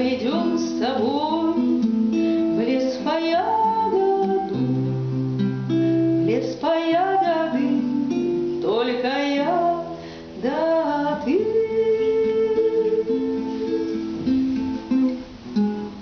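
A woman singing a bard-style love song to her own nylon-string classical guitar. The voice stops about three-quarters of the way through, and the plucked guitar plays on alone, dropping in level near the end.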